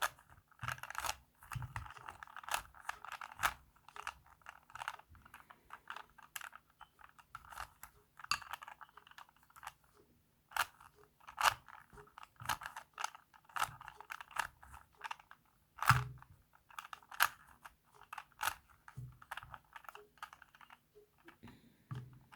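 Plastic Rubik's Cube being twisted through runs of moves: quick clicking and rattling of the layers turning, in bursts with short pauses between sequences.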